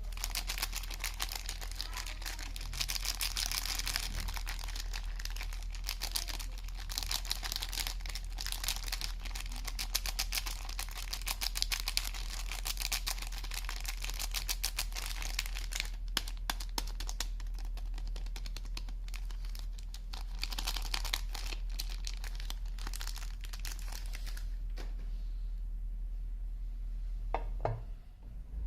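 Soap packaging being unwrapped by hand: the wrapper crinkles and tears in dense crackling for most of the stretch, thinning to a few isolated crackles near the end.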